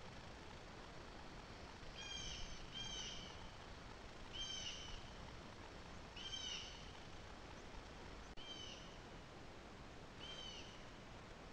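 An animal calling over and over: short, arched, high-pitched calls, seven of them, spaced about one to two seconds apart. A single sharp click sounds a little past the middle.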